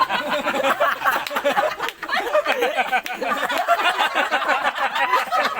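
Several people laughing and talking over one another at once.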